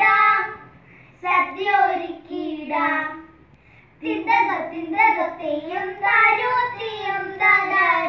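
Two young girls singing a song together without accompaniment, in sung phrases broken by short pauses about a second in and again around three and a half seconds in.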